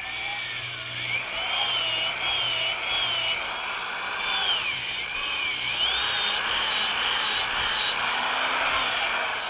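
Power drill spinning a wire-brush battery terminal cleaner to clean a golf cart battery terminal, its whine wavering up and down in pitch.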